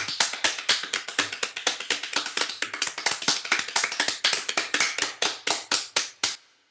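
Hands clapping in a fast, uneven run of sharp claps that stops shortly before the end.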